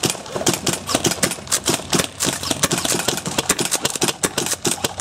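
Airsoft rifles firing in rapid, overlapping bursts: a fast, irregular rattle of shots that keeps on without a break.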